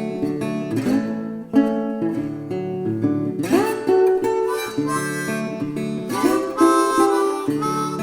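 Background music: strummed acoustic guitar, with harmonica joining in about three and a half seconds in.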